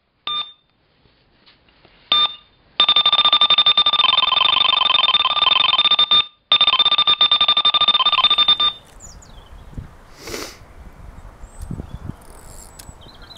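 Electronic carp bite alarm: two single bleeps, then a fast, unbroken stream of beeps for about six seconds with one brief break, the sign of a run as a fish takes line. The alarm cuts off about two-thirds of the way through.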